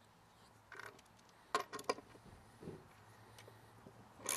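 A few light clicks and knocks of a steel lag bolt and ratchet socket being handled as the socket is set on the bolt head. Near the end the ratchet wrench starts turning the lag bolt into the pressure-treated wood with quick rasping strokes.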